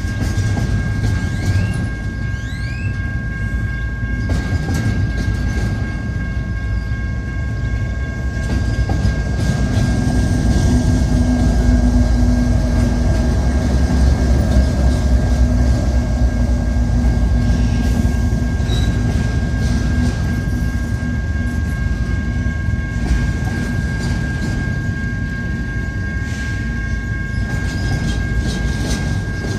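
Intermodal freight train cars rolling past: a continuous rumble with wheels clacking over the rail joints and a thin steady high tone underneath. The rumble grows louder, with a low hum, from about ten seconds in until about twenty seconds in.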